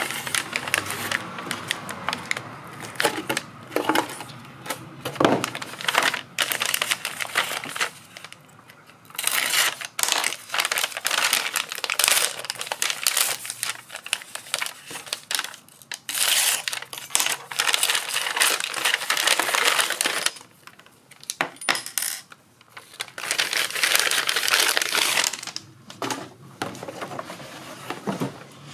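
Paper and cardboard packaging rustling and crinkling as a brown paper envelope is taken from a small box and opened by hand, with sharp clicks and clatters of small hard items, AA batteries and a metal pin, set down or dropped on a wooden tabletop.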